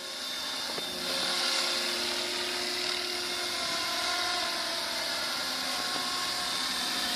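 Protos 500 flybarless RC helicopter in flight: the steady high whine of its motor and main rotor, with rushing rotor noise, getting a little louder about a second in.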